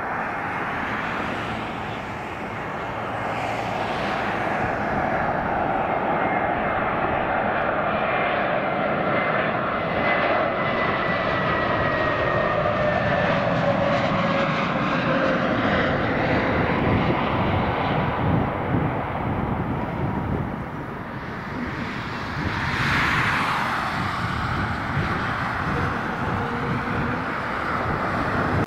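Jet engines of a Spirit Airlines Airbus A320-family airliner running as it passes on its landing approach, a steady roar with a whine that slides down in pitch as it goes by.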